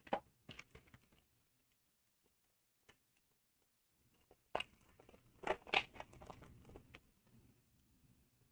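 Foil wrapper of a Panini Mosaic football card pack crinkling and tearing as it is ripped open, in a run of crackly rips about halfway through. Before that come a few light clicks of cards being handled.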